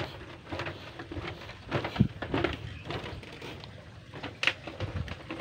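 Footsteps on a bamboo-slat walkway: irregular knocks and clacks of the slats underfoot, one louder knock about two seconds in and another near the end.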